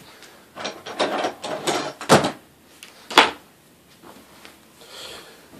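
Rummaging in a drawer for a bayonet: rustling, then two sharp knocks about two and three seconds in, the second louder, as the drawer is worked.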